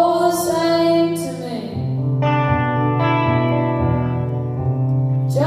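Live music: a woman singing over a slow electric guitar played through an amplifier.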